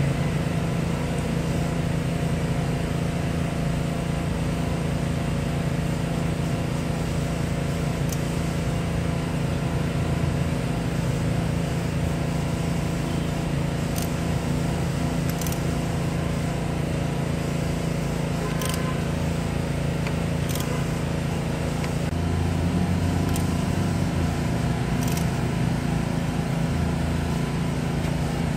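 A steady low mechanical hum, with several sharp clicks of metal tools against the belt and pulley.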